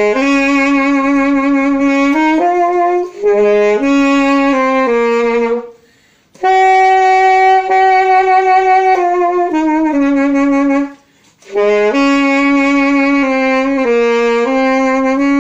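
Saxophone playing a slow melody in three phrases, the notes slurred into one another with no tonguing. A nice sound but not a jazzy one, because the tongue is left dormant.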